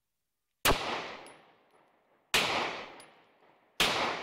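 Three shots from a Beretta 9mm pistol fired into the air, about a second and a half apart. Each crack is followed by a long echo that dies away over a second or more.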